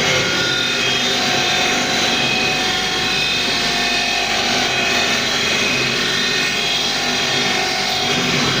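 Cam-driven automatic beading machine running steadily, its motor and mechanism giving a constant mechanical hum with several steady tones.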